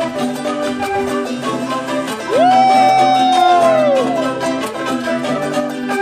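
Background music with plucked and bowed strings. In the middle, a long held note slides up at its start, stays level for about two seconds, then slides down, louder than the rest.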